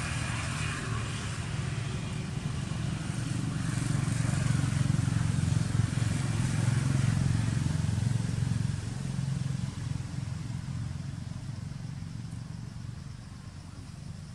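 A motor vehicle's engine running as a low steady drone, growing louder about four seconds in and fading away after about eight seconds.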